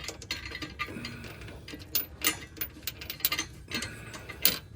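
Irregular sharp metal clicks and clinks as a hitch bolt and washer are handled and put in place under the car, the loudest a couple of seconds in and near the end.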